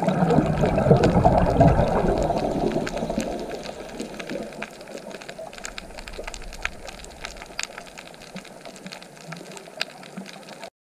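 Underwater audio: water rushing past the housing, loudest in the first couple of seconds and then fading. Scattered sharp clicks and crackles run throughout, and the sound cuts off abruptly near the end.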